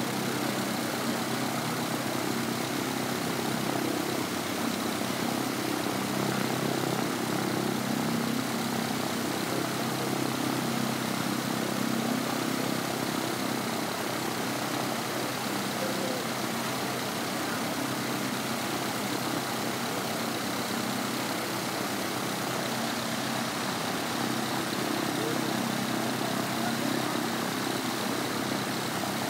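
Piper PA-28-140's four-cylinder Lycoming O-320 engine idling steadily with the propeller turning.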